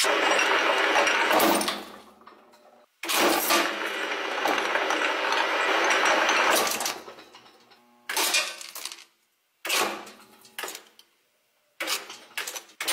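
Dual-shaft shredder's cutter discs crunching and cracking clear hard objects, in several loud bursts that cut off suddenly into near silence between them.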